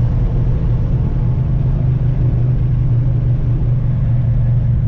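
2010 Chevrolet Camaro SS's 6.2-litre V8 running with a steady, low drone.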